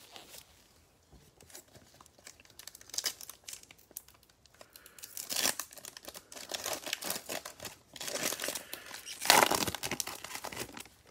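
Foil cello wrapper of a Mosaic football card pack crinkling and tearing as it is ripped open by hand. It starts faint and sparse, then comes in louder bursts of crackling in the second half.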